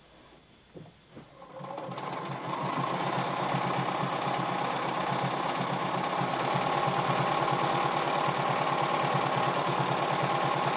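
Bernina B 780 sewing machine stitching a seam. It starts about two seconds in and runs steadily at a fast, even stitching rate. Before it starts there are a few faint clicks of fabric being handled.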